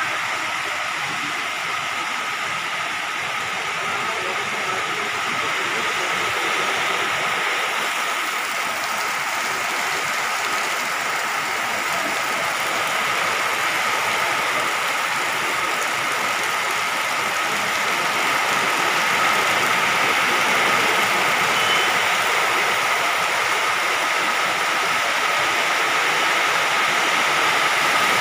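Heavy rain pouring down, a steady even hiss that grows slightly louder toward the end.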